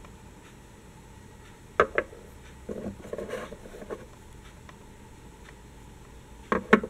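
Handmade polymer-clay tram models knocking on a wooden table as they are picked up and set down: two sharp knocks about two seconds in, a second of light scraping and rubbing, then another two knocks near the end.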